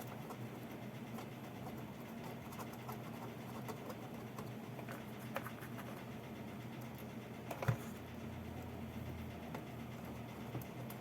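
Small scattered clicks and scratches of hands working on an amplifier on the bench, over a low steady hum, with one louder knock about eight seconds in.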